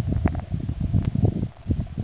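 Water moving around an underwater camera: a low, uneven churning rumble with irregular sharp clicks and taps scattered through it.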